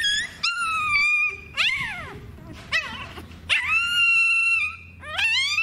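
Young puppy crying in high-pitched whines and yelps, a string of short falling cries and a couple of longer held whines, in pain while mangoworm larvae are taken out of an infected spot.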